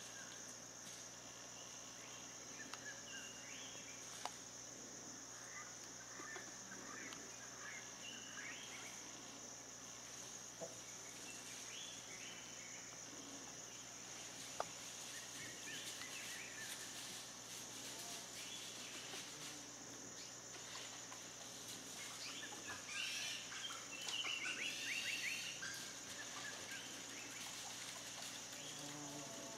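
Steady high-pitched chorus of crickets, with scattered short bird chirps. Near the end comes a louder run of quickly repeated calls. Two sharp clicks stand out, one early and one about halfway.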